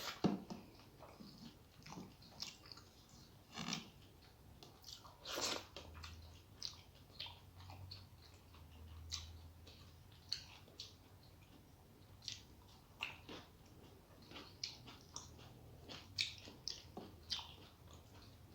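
A person chewing and eating food close to the microphone: irregular short mouth clicks, a few a second.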